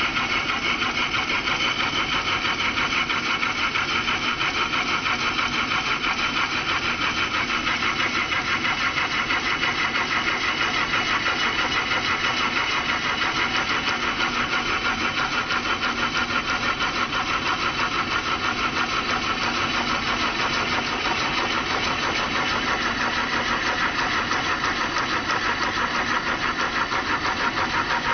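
Wood lathe spinning a wooden bowl blank while a hand-held turning tool cuts into it: a steady cutting noise with a fast, even pulsing.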